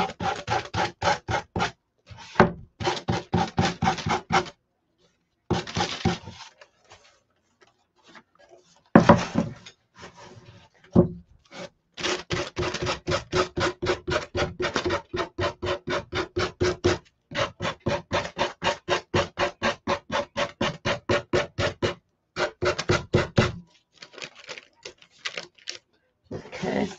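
Sandpaper rubbed quickly back and forth along the edge of a decoupaged pine board, about five strokes a second, in runs broken by short pauses. It is sanding off the excess paper overhanging the edge.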